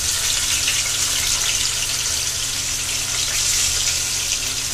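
Rohu fish steaks deep-frying in hot mustard oil in a frying pan: a steady sizzling hiss with fine crackles.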